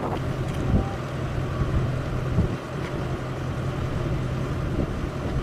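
Steady low hum of a vehicle engine idling, with outdoor noise around it.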